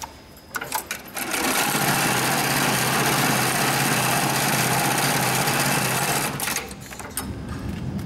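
After a few sharp clicks, a HighTex 72600PLK2S heavy-duty cylinder-bed pattern sewing machine stitches a programmed pattern across a woven webbing handle loop at high speed. It makes a steady, fast running sound with a low hum for about five seconds, then stops with a few more clicks about six and a half seconds in.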